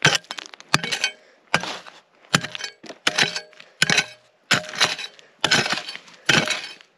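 A hand pick striking bedrock again and again, about nine sharp cracking blows spaced a little under a second apart, breaking rock out around a buried metal-detector target.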